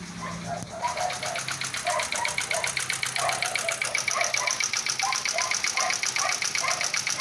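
2018 Hyundai Accent's 1.4 Kappa G4LC four-cylinder petrol engine idling after a cold start, with a fast, steady ticking that gets louder about a second in.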